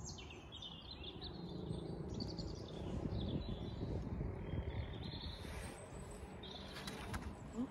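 Small birds chirping and singing now and then over a low, uneven outdoor rumble.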